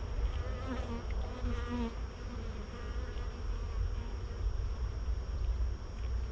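Honeybees buzzing around an open hive, with a few bees passing close by about a second in, their buzz wavering in pitch. A steady low rumble sits underneath.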